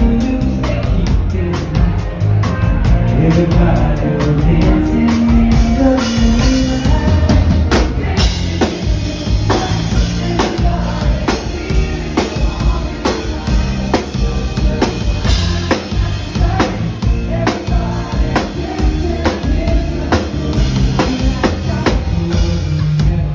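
Live band playing loud, with a man singing lead into a microphone over a drum kit keeping a steady beat.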